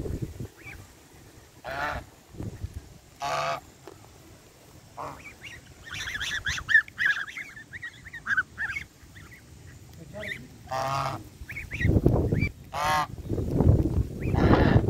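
Domestic geese honking at close range, several separate calls, with a run of high-pitched gosling peeps in the middle. Low rumbling noise comes in heavily near the end.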